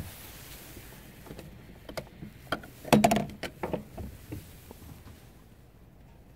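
A flurry of clicks and knocks, loudest about three seconds in, as the round flush latch on a fibreglass anchor-locker hatch is flipped open and the hatch is handled. A single sharp click comes right at the start.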